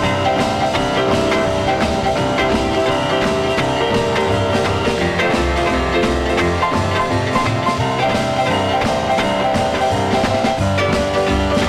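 Rock and roll music: an instrumental break between sung verses, with a steady drum beat.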